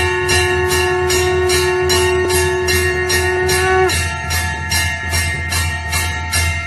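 Temple hand bell rung rapidly and steadily, about four strokes a second, over a conch shell (shankh) blown as one long held note that sags in pitch and stops about four seconds in.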